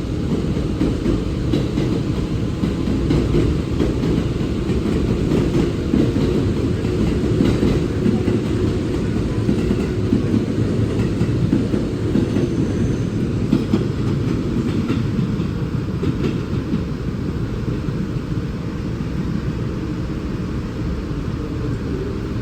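Train running along the tracks through a station: a steady low rumble with faint wheel clicks, easing slightly near the end.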